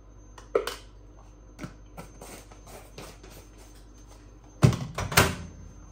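Light clicks and taps of a spoon and spice containers being handled on a kitchen worktop while seasoning chicken, with a few louder sharp knocks about two-thirds of the way through as a container is set down or picked up.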